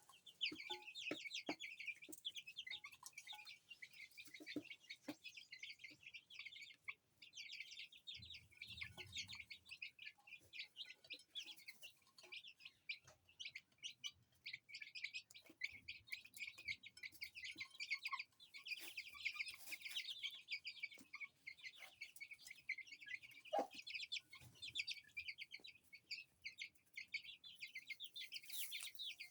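A brood of baby chicks peeping continuously in a rapid, high-pitched chorus, with an Aseel hen clucking now and then underneath.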